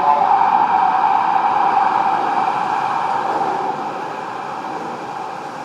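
São Paulo Metro Line 1 train running through the station: a steady rushing noise with a strong mid-pitched hum, gradually fading over the last couple of seconds.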